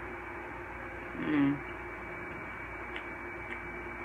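Steady background hiss with a faint electrical hum, broken about a second in by one brief voiced murmur from a person.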